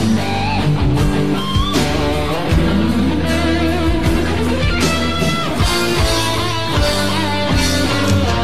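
Karaoke backing track, pop-rock music led by guitar.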